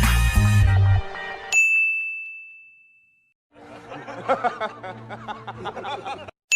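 Stock meme sound effects played back. A music clip cuts off about a second and a half in, then a single high, bell-like ding rings out and fades. After a brief silence come a few seconds of jittery, wavering voice-like sound.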